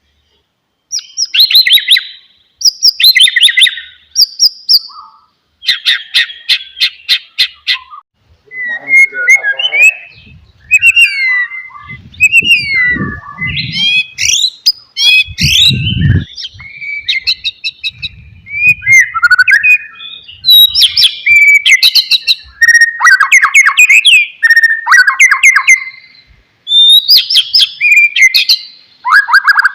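White-rumped shama (murai batu) singing: varied phrases of clear whistles, sweeping notes and fast rattling trills, each a second or two long with short gaps between them. A low thudding sits under the song about halfway through.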